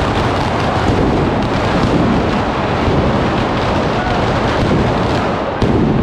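Mascletà firecracker barrage: a dense, continuous run of bangs merging into one another, with a louder crack near the end.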